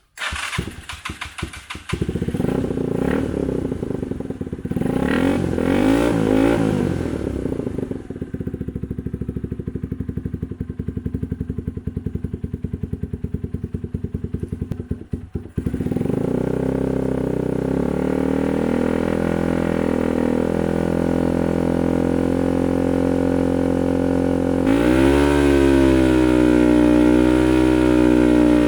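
KYMCO KCR125's 125cc single-cylinder four-stroke engine running loud through a cheap aftermarket silencer that has no inner baffle fitted. It catches about two seconds in, idles with a brief rev around the middle of the first half, and runs steadier and a little louder in the second half.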